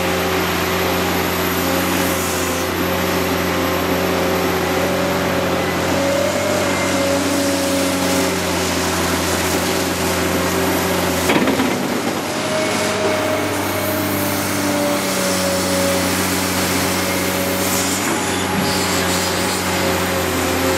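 Caterpillar 385C LME hydraulic excavator's diesel engine running steadily under load as it digs and swings. About eleven seconds in there is a brief loud crash as a bucketload of earth drops into a dump truck's body.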